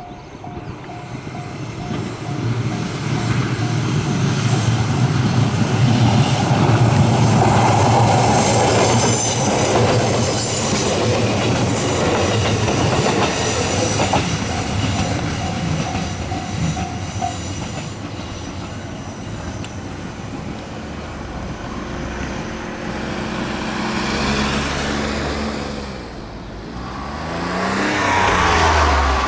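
Electric multiple-unit train passing through a level crossing on a curve, building to its loudest a few seconds in, with a high wheel squeal for a few seconds around the middle. The crossing's warning bell rings with a quick, even repeat at the start and again for a few seconds about halfway. Near the end a road vehicle's engine rises and falls as it passes.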